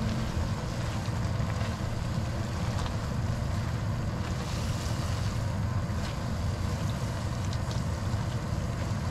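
Steady hiss of a creamy sauce simmering in a frying pan, with small scrapes and clicks of a plastic spatula as spaghetti and shrimp are stirred through it.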